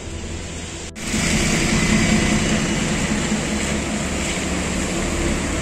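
Road traffic on a wet city street: engines of lorries and vans running, with a steady hiss over a low rumble, turning suddenly louder about a second in.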